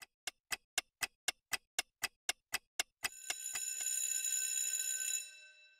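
A clock ticking evenly, about four ticks a second. About three seconds in, a bell starts ringing, runs for about two seconds and fades out: a ticking-clock-and-bell intro sound effect.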